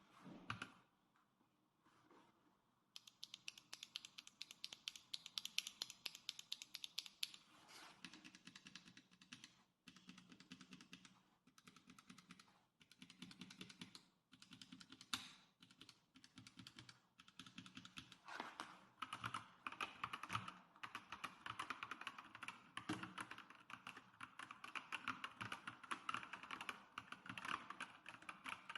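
Fast typing on a custom mechanical keyboard with PBT keycaps: a dense, quick run of keystroke clacks that starts about three seconds in, broken by short pauses.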